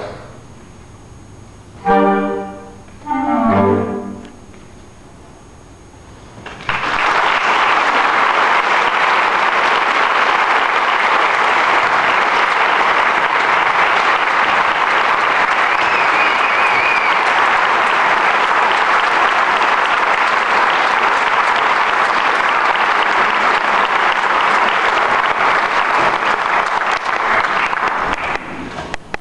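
A concert band plays two short final notes after its held chord dies away, then the audience breaks into steady applause about seven seconds in, lasting until near the end.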